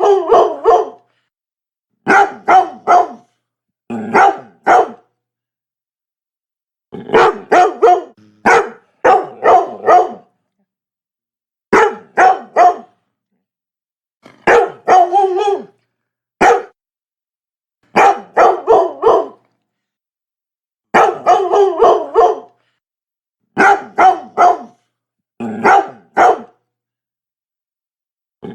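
Labrador barking in quick runs of two to four loud barks, with short silent gaps between the runs.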